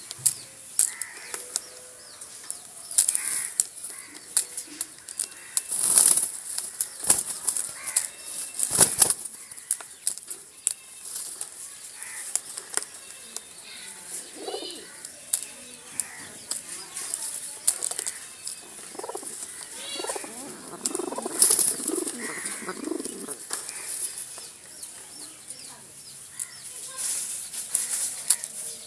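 Pigeons flapping their wings in repeated short flutters and clatters, with some low cooing here and there.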